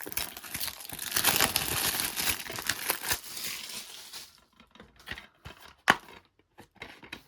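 Plastic shrink-wrap crinkling and tearing as it is peeled off a new, sealed DVD case, followed by a few light clicks and taps as the case is handled, with one sharper click near the end.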